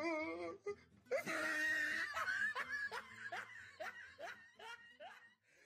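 A person laughing: a loud burst of laughter about a second in, then a run of short falling 'ha' sounds that trail off.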